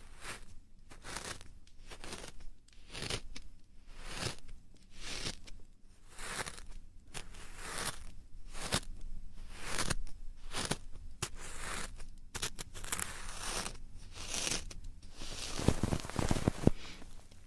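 Close-up ASMR rubbing strokes on an ear microphone, a swish about once a second, with crackly scratching near the end.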